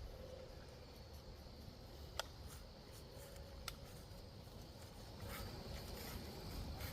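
Quiet outdoor ambience: a low wind rumble on the microphone and a faint steady high-pitched hum, with two sharp clicks about two and three and a half seconds in.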